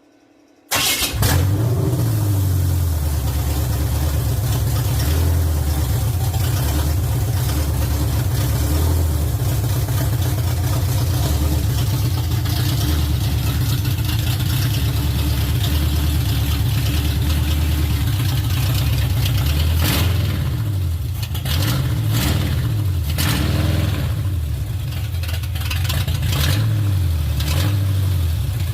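A Chevrolet 307 small-block V8 fires right off about a second in and then runs. The idle is not smooth, which the owner puts down to the carburettor's mixture screws needing adjustment. Around twenty seconds in, the engine speed rises and falls a few times.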